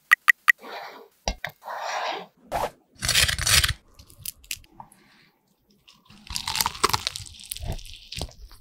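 Crunchy fried chicken with a beer-flour batter being bitten and chewed close to the microphone: crisp crackling bursts about three seconds in, then a longer stretch of crunching chewing from about six seconds on. There are softer squishy sounds before the first bite.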